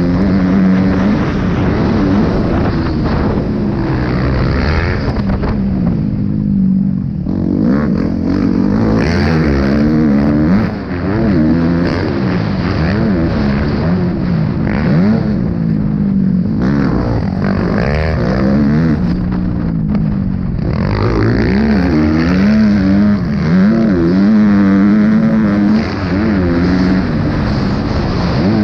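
Motocross dirt bike engine heard from on board, revving up hard and falling off again and again as the rider accelerates, shifts and rolls off around the track. The throttle closes briefly about a third of the way in and again about two thirds of the way through.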